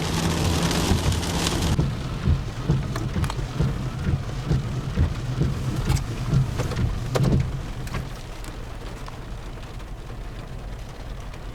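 Heavy rain hitting a storm-chase vehicle, scattered sharp drops ticking against it over a steady low rumble. A loud hiss stops abruptly about two seconds in, and the sound is somewhat quieter after about eight seconds.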